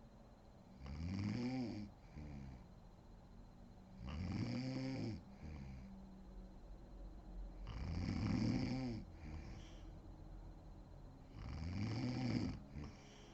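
A woman snoring: four loud snores about every three and a half seconds, each rising and then falling in pitch, and each followed by a shorter, softer breath out.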